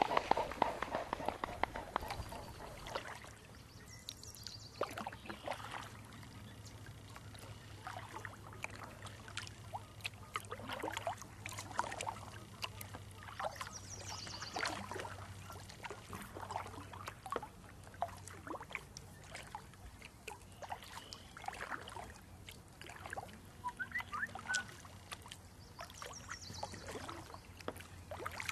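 Kayak paddle strokes: water splashing and dripping off the paddle blades at an uneven pace.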